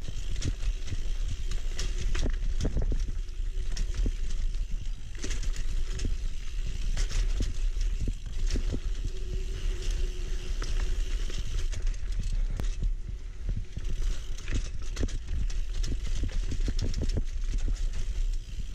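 Fetish Cycles Fixation single-speed mountain bike ridden along dirt singletrack: a steady low rumble of tyres on the trail, broken by frequent sharp clicks and rattles as the bike jolts over roots and bumps.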